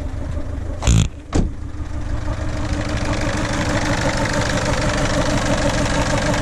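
Ford 1.4 TDCi four-cylinder turbo-diesel idling very rough, with at least one cylinder not firing properly, which the owner puts down to faulty injectors. A loud thump about a second in, then a smaller one just after.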